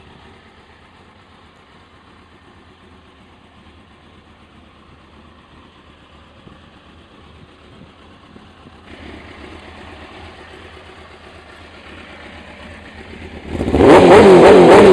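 Suzuki GSX motorcycle engine idling quietly, a little louder from about nine seconds in, then revved sharply near the end.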